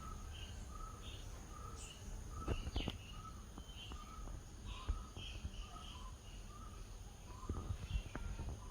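Birds calling in short notes repeated about twice a second, alternating between a lower and a higher pitch, over a steady high insect drone and a low rumble. A few knocks come about a third of the way in and near the end.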